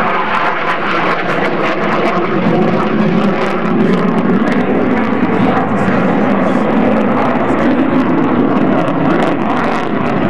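Twin-engine military fighter jet flying a display pass overhead: loud, steady, rough jet-engine noise that swells slightly about two seconds in.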